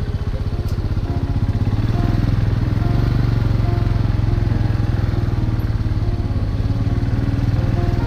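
Royal Enfield Himalayan's single-cylinder engine running steadily at low speed, with an even putter of firing pulses, as the motorcycle rolls slowly in a low gear.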